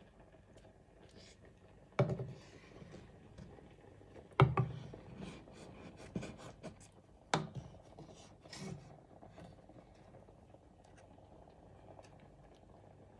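Wooden spoon stirring soup in an aluminium pot, knocking and scraping against the pot: three sharp knocks about two, four and a half and seven and a half seconds in, with lighter taps and scrapes between.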